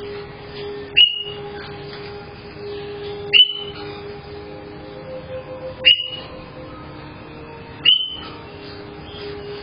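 A parrot calling four times, about two seconds apart: each call is a loud, sharp rising shriek that levels off into a short high held note. A steady low hum runs underneath, picked up through a home security camera's microphone.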